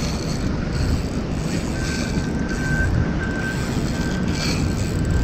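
A saltwater spinning reel being cranked to retrieve a lure, its mechanism whirring under a steady rushing noise. A faint thin tone comes and goes in the second half.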